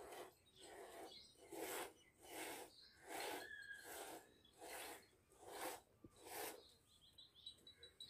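Milk squirting from a Beetal goat's teats into a plastic bucket already holding milk during hand-milking: a faint, regular series of frothy swishes, about one and a half a second, as the hands strip the teats in turn.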